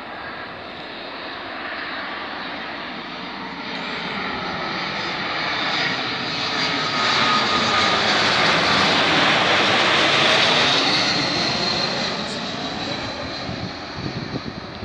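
Airbus A220-300's Pratt & Whitney PW1500G geared turbofan engines on landing approach, passing low overhead: a rush of jet noise that swells to its loudest about ten seconds in, with a high steady whine, then fades as the airliner flies on.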